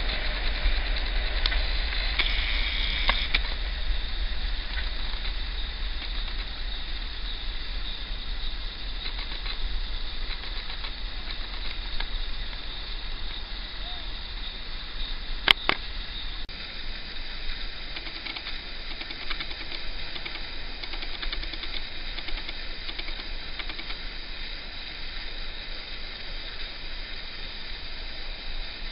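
Class 56 diesel locomotive running light, its engine sound fading into a steady hiss and low rumble as it draws away. A single sharp click about halfway through.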